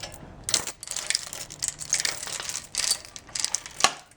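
Metal clinking, scraping and rattling in irregular strokes, with one sharp clank near the end.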